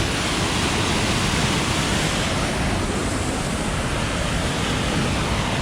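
Steady, loud rush of a waterfall and fast-flowing creek water.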